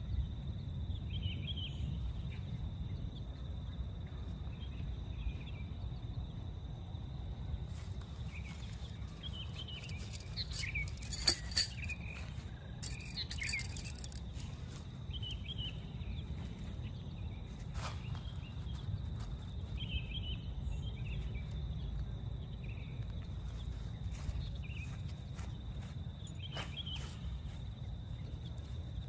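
Forest birds chirping now and then over a steady outdoor background with a low rumble and a thin, steady high tone. About eleven seconds in, a short spell of handling noise with two sharp clicks, as tent pegs are handled.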